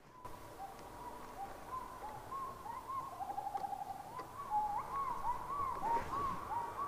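Wild animal calls: a chorus of short hooting whoops, each rising and falling in pitch, overlapping and growing louder, with a quick trill about three seconds in.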